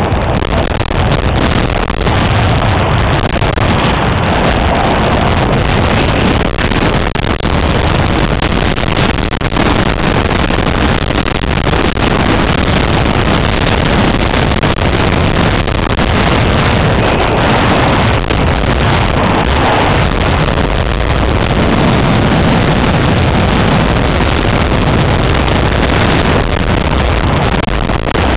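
Steady, loud wind rushing over the microphone on a downhill ski run, mixed with skis scraping over the snow.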